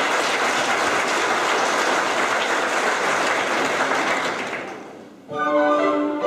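Audience applauding, dying away about five seconds in; an orchestra then starts playing.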